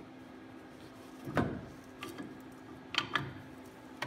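Metal knock and clicks of a new brake pad being seated into a disc brake caliper: one solid knock about a second and a half in, then two quick clicks close together near the end, over a steady faint hum.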